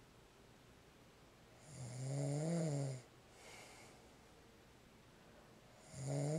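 A man snoring heavily in his sleep. A loud, deep snore comes about two seconds in and lasts over a second, followed by a softer breath out. The next loud snore begins near the end. It sounds like a wild boar.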